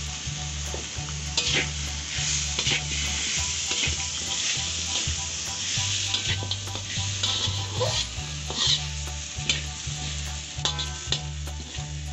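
Metal spatula stirring and scraping chicken and potatoes around a hot wok, the food sizzling in the oil, with frequent short scrapes and clacks of metal on the pan. A low hum runs underneath.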